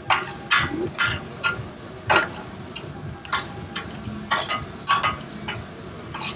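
Irregular sharp clicks and clinks, about one to two a second, some with a brief metallic ring.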